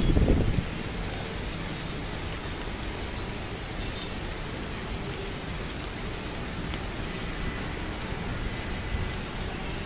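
Steady rain hiss, with a brief low rumble right at the start.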